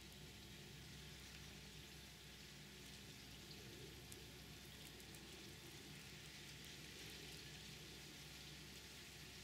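Near silence: a faint steady hiss with a low hum underneath and a few faint ticks.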